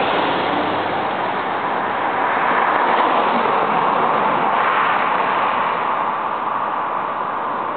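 Road traffic: cars passing on an asphalt road, a steady rush of tyre and engine noise that swells about three seconds in and fades toward the end.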